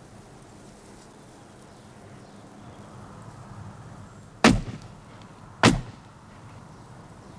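Two shotgun shots a little over a second apart, each a sharp report with a short tail.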